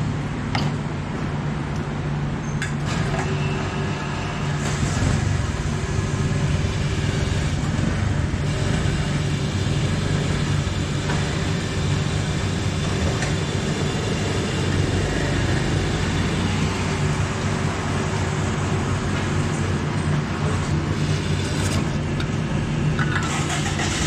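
Petrol dispenser running as fuel streams from the nozzle into a motorcycle's fuel tank, a steady low hum with a rushing hiss over it.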